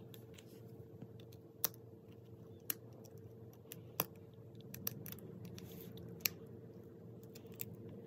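Faint, scattered clicks of fingers and nails working at a raw egg's shell to crack it open, a few sharp ticks a second or so apart over a faint steady hum.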